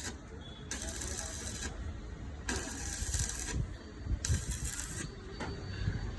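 Arc welding in short runs: four bursts of crackling hiss, each about a second long, with pauses between them.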